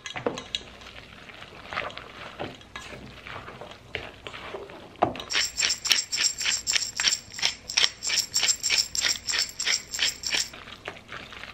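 Wooden spoon tossing hot spaghetti in a stainless steel bowl, with soft scrapes and light knocks. About five seconds in, a hand pepper mill grinds black pepper over the pasta: a rhythmic rasping crunch, about four strokes a second, for about five seconds.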